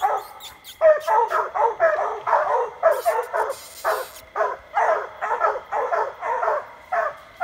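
Hounds barking treed: a steady, rapid run of short barks, about three a second. This is the tree bark that tells the hunter the quarry is up the tree.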